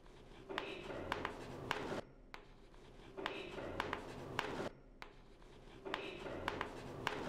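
Chalk writing on a blackboard: three separate stretches of scratching with sharp taps as numbers are written, with short pauses between them.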